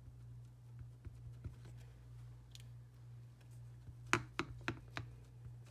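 A clear-mount rubber stamp being handled and tapped onto a Versamark ink pad: scattered faint clicks, then a quick cluster of sharper taps about four seconds in, over a steady low hum.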